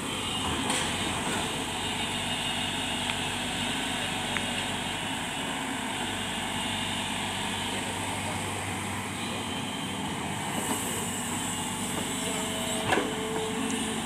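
SANY crawler excavator's diesel engine running steadily while the machine slews round and raises its boom and bucket, with a few sharp knocks, the loudest near the end.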